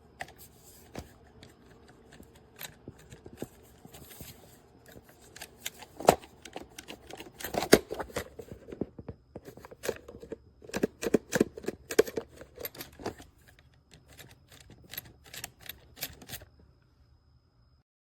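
Irregular run of small sharp clicks and clacks from a Master Lock 5900D portable lock box being handled, busiest in the middle and stopping a second or two before the end.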